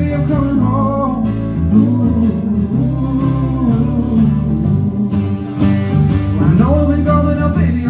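A live band playing a pop-rock song on electric bass, electric guitar and acoustic guitar, with changing bass notes under the strummed chords.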